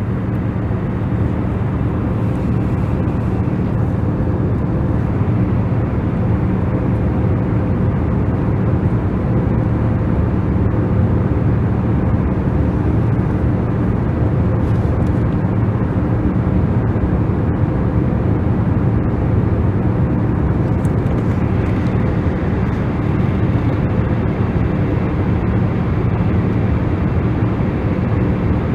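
Loud, steady low rumbling drone with several steady hum tones running through it, of the kind an engine or vehicle cabin makes. It starts abruptly.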